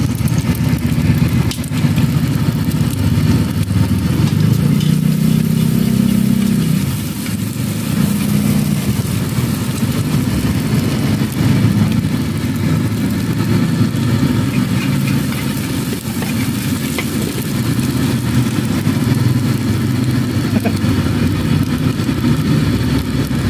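A running engine hums steadily close by, its low drone shifting a little in pitch, with a metal spatula now and then clinking against an iron wok.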